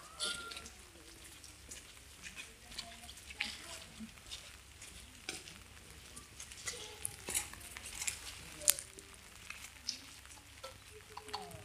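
Irregular crackling with scattered sharp clicks, a few louder than the rest, the loudest about two-thirds of the way through.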